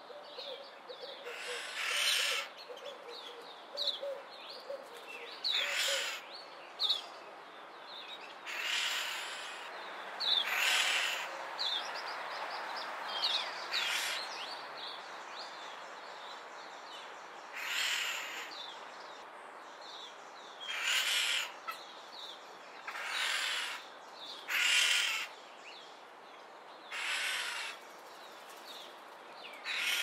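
Red-winged starlings giving harsh, grating calls about a dozen times, each a second or so long and coming every two to three seconds, while two of them grapple in a fight. Short thin chirps from birds run underneath.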